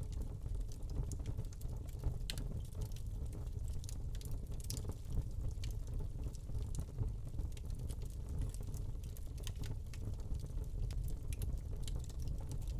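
Wood fire burning in a fireplace, crackling with scattered sharp pops over a steady low rumble of the flames.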